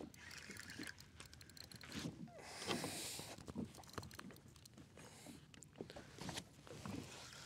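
Fishing reel being wound in against a bent rod with a fish on, a run of faint clicks and small knocks from the reel and handling, with a brief rush of hiss about two and a half seconds in.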